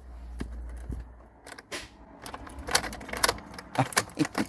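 Irregular light clicks and rattles of small hard objects being handled, after a low hum that lasts about the first second.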